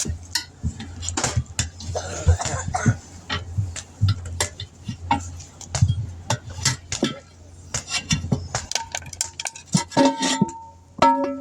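Metal tools clinking, knocking and scraping against a steel wheel rim as a tire is pried off it, with a steady low hum underneath. About ten seconds in, a few metal strikes ring out with a clear tone.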